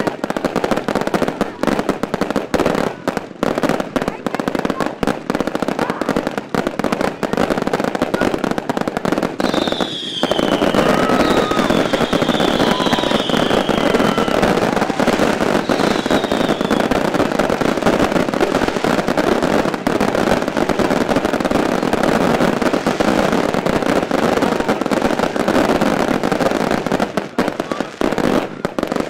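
Fireworks finale: a dense barrage of rapid bangs and crackling bursts from aerial shells and cakes, thickening into near-continuous crackle about ten seconds in and stopping suddenly at the end.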